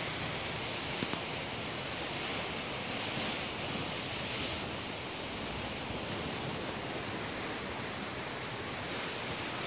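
Steady rushing hiss of outdoor forest ambience, even throughout and brightest in the upper range, with no distinct events.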